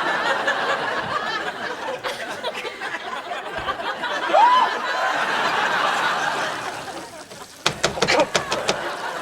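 Studio audience laughing, swelling and then fading away, with one rising call cutting through about four seconds in. Near the end come several sharp knocks.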